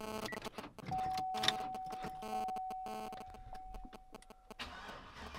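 Hummer H2 with the ignition switched on: a run of short, repeating electronic chime pulses and a steady tone, then the engine starting at the very end.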